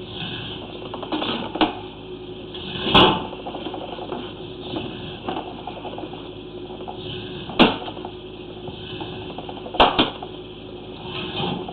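Sewer inspection camera's push cable being drawn back out of the drain line. There is a steady hum and a light mechanical rattle, with four sharp knocks along the way.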